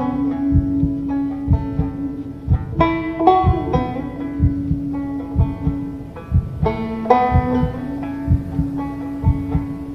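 Slow banjo music: clusters of picked notes ring out every few seconds over a held low tone.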